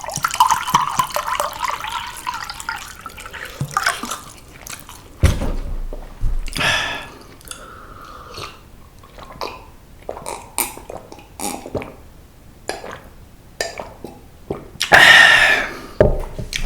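Close-miked wet eating sounds: chewing, lip smacks and sticky mouth clicks of someone eating seasoned pollack with rice. There is a hissing stretch in the first few seconds and a loud short breathy burst near the end.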